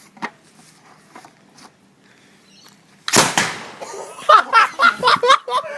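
Combustion potato gun firing once about three seconds in: a sudden loud bang with a short rushing tail that fades over most of a second.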